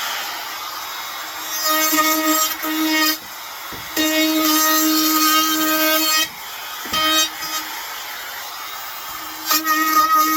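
Handheld wood router running and cutting along the edge of a wooden board, its steady whine growing louder in several stretches of one to two seconds as the bit bites into the wood.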